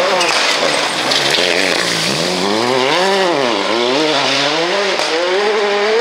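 Škoda Fabia rally car's engine at high revs, its pitch climbing, dropping sharply midway as the driver lifts, and climbing again, with tyre noise from the loose dirt surface. About five seconds in the note turns steadier.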